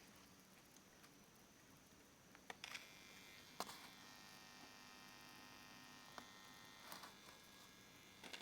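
Faint electrical buzz from a small speaker on a homemade LM7805-powered circuit. It comes on with a couple of clicks about two and a half seconds in, holds steady, and is broken by a few more sharp clicks before it cuts off near the end.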